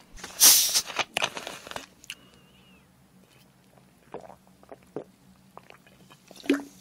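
A plastic cola bottle twisted open with two short hisses, then a man gulping from it a few times.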